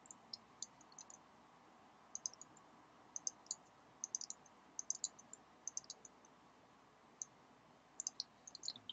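Light, sharp clicks of a computer keyboard and mouse in quick irregular clusters, as text is copied and pasted line by line in a code editor; the clicks pause briefly near the middle, then resume.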